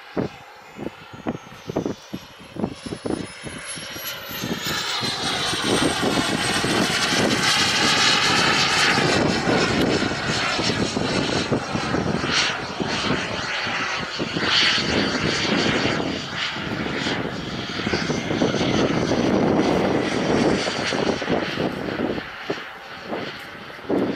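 Model jet's Merlin 140 turbine flying overhead: its rush and whine swell in a few seconds in, with the whine sliding down in pitch as it passes, stay loud, and fade near the end. Wind knocks on the microphone at the start.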